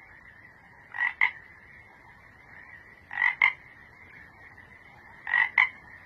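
Frog croaking: three double croaks, each two quick pulses, about two seconds apart. Under them runs a steady high-pitched background drone.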